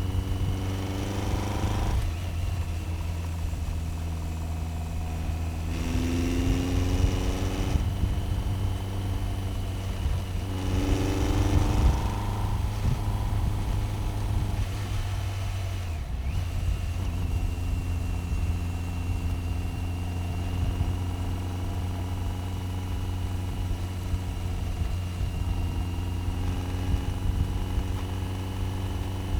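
BMW K1100 RS's inline-four engine running on the move, its revs climbing twice, about six and eleven seconds in, then holding steady, with a thin high whine over the engine note.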